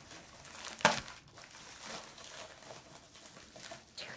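Plastic shipping mailer being torn and pulled open, with one sharp tear about a second in followed by soft crinkling of the plastic.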